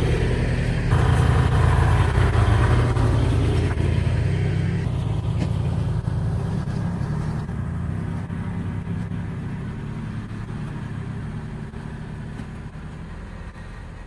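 Kubota L2501 tractor's three-cylinder diesel engine running as it drives away pulling its box blade. The sound grows steadily fainter.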